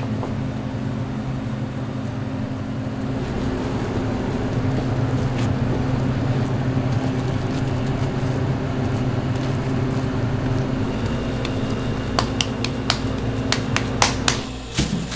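Steady hum of a kitchen machine's motor, then a quick run of sharp clicks and knocks near the end.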